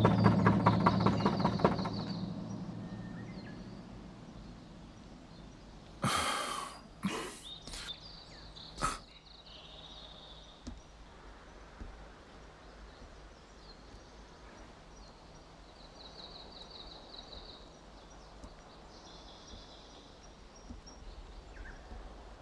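Knocking on an old wooden door: a short run of sharp raps about six to nine seconds in, with small birds chirping in short high trills now and then. Background music fades out over the first two seconds.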